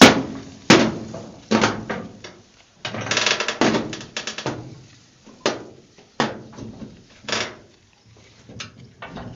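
A gate being forced shut in a run of loud knocks and rattles, about a dozen separate bangs with a longer rattling stretch around three seconds in: the gate is stiff and difficult to close.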